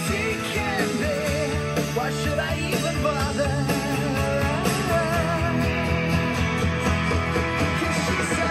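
Rock music with guitar played back through KLH 403A indoor/outdoor speakers, small two-way speakers with 4-inch polypropylene mid-woofers. The music is steady and continuous, with a wavering lead line over a driving beat.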